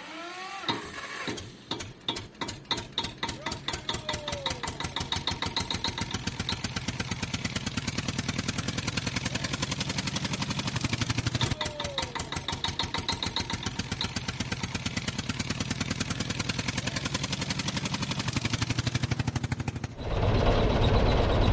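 Tractor diesel engine starting, its slow chugs quickening within the first couple of seconds into a fast, steady chug. Near the end a louder, rougher running sound takes over.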